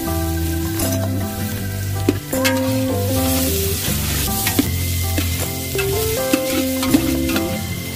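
Chopped onions sizzling in hot oil in a large aluminium pot, with a metal spoon stirring and knocking against the pot a few times. The sizzle swells a few seconds in. Background music with held instrumental notes plays over it.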